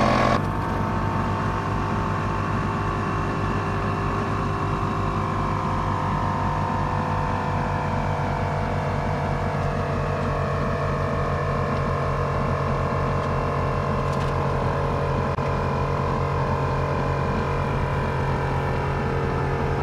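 Two 12-volt piston air compressors, an ARB CKMA12 and an ALL-TOP portable, running together while inflating a truck tire from flat. A steady motor hum with a fast, even pulsing from the pistons.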